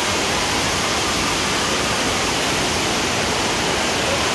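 Steady rush of water running through a bowl water slide, churning around its central drop.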